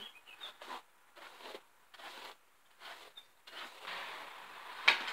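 A hairbrush drawn through long hair in short, quick strokes, each one scratchy. About three and a half seconds in, a steady hiss takes over, and there is a sharp click near the end.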